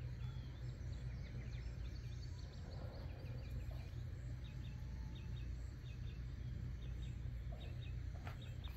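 Quiet outdoor garden ambience: a steady low rumble with faint, short bird chirps scattered throughout.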